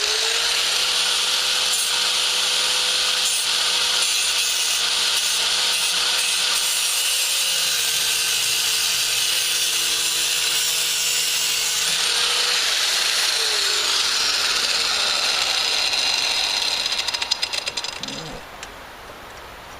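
A power tool's abrasive cutoff wheel cutting steadily through a rotted metal swing-set tube, with a steady motor whine under a hissing grind. Near the end the cut finishes, and the noise breaks up and stops.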